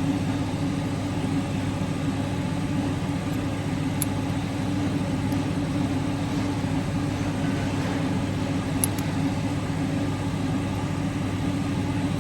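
Steady low mechanical hum of machinery running in the background, with a couple of faint clicks.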